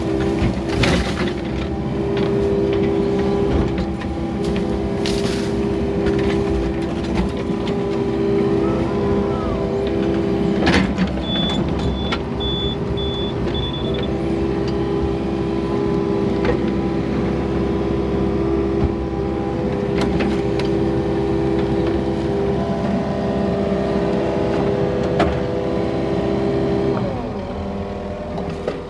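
Hydraulic excavator running under load, heard from inside the cab: a steady engine drone with hydraulic whine, and a few sharp knocks as the bucket works. A short run of high beeps comes about eleven seconds in, and near the end the engine note drops.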